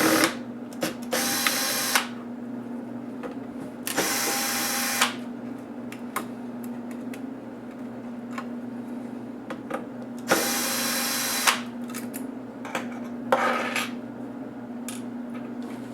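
Small electric screwdriver running in four short bursts of about a second each, backing screws out of a laptop case, with small clicks and taps of parts between bursts. A steady low hum runs underneath.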